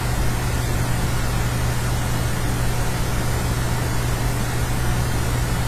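Steady room background noise: a constant low hum with an even hiss over it, unchanging throughout.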